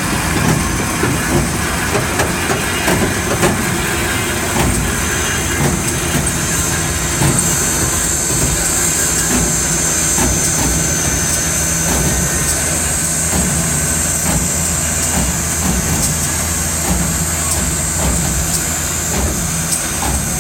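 Southern Railway 4501, a steam locomotive, turning on a turntable: a steady low mechanical drone with scattered clicks. A steady high hiss comes in about a third of the way through and continues.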